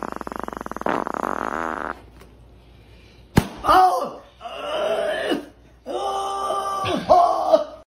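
A rapid buzzing rattle like a fart sound, pressed against a pug's rear, lasting about two seconds. After a short pause comes a run of strained vocal cries, each bending down in pitch at its end.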